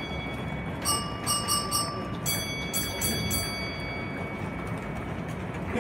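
Bright metallic bell strikes, each ringing with several high tones: one about a second in, three quick ones, then one that rings on for about two seconds. A steady low rumble runs underneath.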